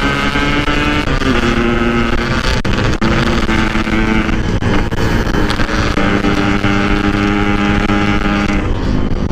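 Yamaha RX-King 135 cc single-cylinder two-stroke engine running under way at a fairly steady speed, its pitch dropping a little about a second in and then holding, with wind on the microphone.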